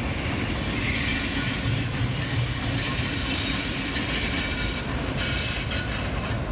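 Diesel-hauled passenger train passing: a steady rumble of wheels on the rails and a low engine hum as the locomotive at the end of the train goes by, with a faint high wheel squeal about a second in.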